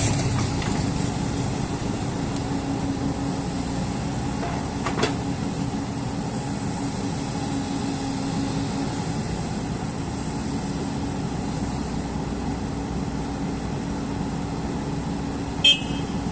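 JCB excavator's diesel engine running steadily, with a brief knock about five seconds in and a short, louder knock near the end.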